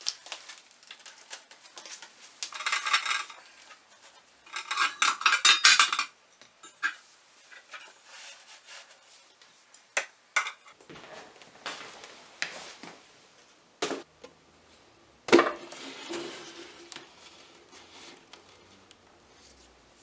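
A frying pan and its lid handled and set down on a shelf. Two stretches of rattling clatter come a few seconds in, then several separate knocks, the loudest about fifteen seconds in with a short metallic ring after it.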